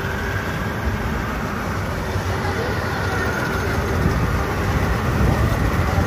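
Maxxi Bimo rice combine harvester running steadily while cutting and threshing rice: a continuous engine and machinery drone that grows a little louder about two-thirds of the way through.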